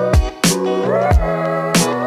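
Background music with a steady drum beat over sustained instrumental notes.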